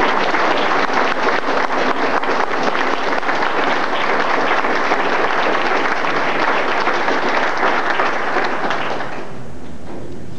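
Audience applauding with dense, steady clapping that dies away about nine seconds in, leaving a low steady hum.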